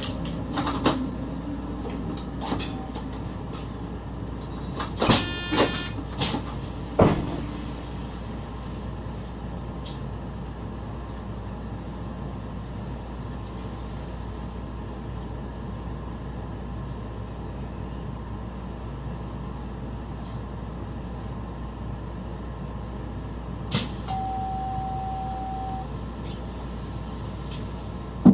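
Running noise inside a Dutch NS stopping train's driver's cab: a steady low rumble, with a cluster of clunks and rattles in the first several seconds. Near the end a single steady beep sounds for about two seconds.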